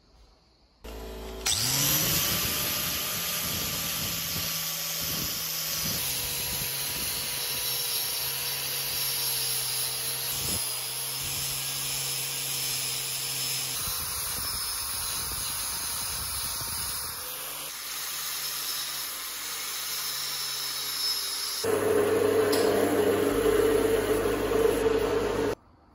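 Electric power tools grinding rust off steel: a drill spinning a small abrasive wheel and an angle grinder with an abrasive disc, in several joined takes. A motor spins up about a second in, the sound changes abruptly several times, is loudest in the last few seconds, and cuts off suddenly just before the end.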